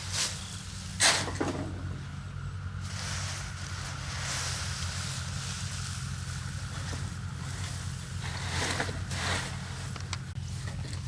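A motor hums steadily and low, with a few short swishes over it. The sharpest swish comes about a second in, and two more come near the end.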